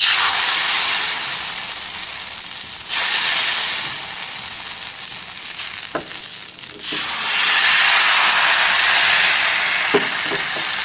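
Appam batter sizzling as it hits a hot appam pan: a steady hiss that starts at once as the batter is poured and grows louder twice, with a few faint clicks.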